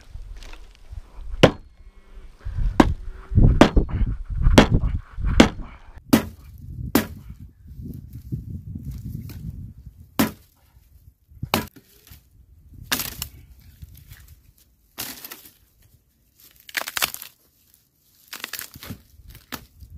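Hatchet chopping a dry, dead branch: about a dozen sharp, uneven blows, with the dry wood cracking and splitting.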